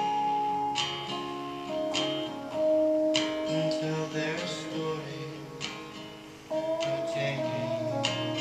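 Instrumental passage of a song: an acoustic guitar strummed roughly once a second, with an electric guitar playing held, bending melody notes over it. The playing eases off around six seconds in, then comes back stronger.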